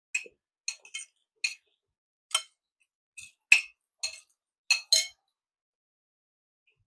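Cutlery clinking against dishware: about ten short, sharp, ringing clinks at irregular intervals over about five seconds, the loudest about three and a half seconds in.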